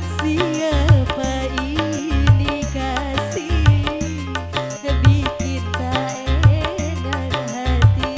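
Live dangdut band music: a steady drum and bass beat under a bending, wavering melodic lead.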